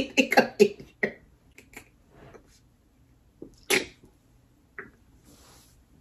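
A woman laughing: rapid laughing pulses that trail off within the first second, then a few short breathy bursts of laughter with gaps between, the loudest about three and a half seconds in.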